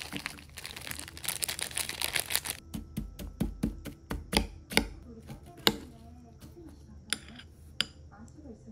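Plastic snack packet crinkling as crumbled snack pieces are shaken out of it, then a metal spoon clinking and scraping against a ceramic bowl in a string of sharp ticks while the pieces are stirred into shaved milk ice.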